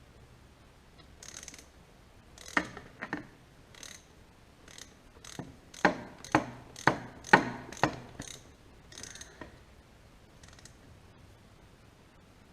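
Ratchet wrench clicking in short, uneven runs while the fasteners are drawn down on the pump. The loudest clicks come about twice a second in the middle of the stretch.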